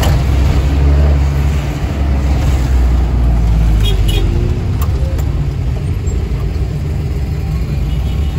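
Mitsubishi Colt L300 minibus engine running at low speed in stop-and-go traffic, heard from inside the cabin as a steady low drone that is heavier in the first two seconds.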